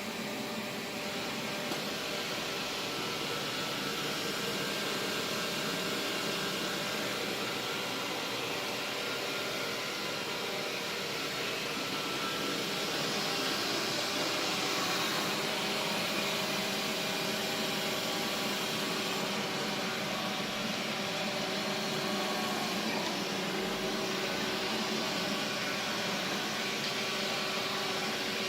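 Xiaomi V1 robot vacuum cleaner running during a cleaning run: a steady whine of its suction fan, several steady tones over a hiss, getting slightly louder about halfway through.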